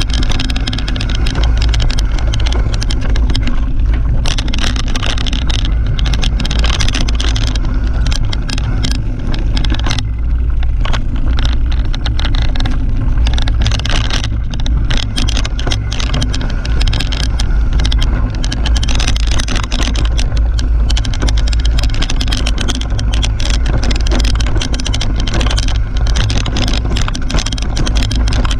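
Mountain bike riding down a rough dirt singletrack, heard from a bike-mounted action camera: a steady low rumble from the tyres on the ground, with constant rattling and knocking from the bike as it goes over the bumps.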